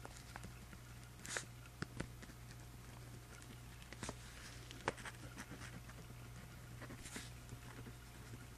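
Pen writing on paper in a journal: faint scratching strokes with scattered light taps, over a low steady hum.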